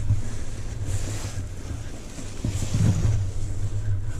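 Wind buffeting the microphone: a gusting low rumble with swells of hiss.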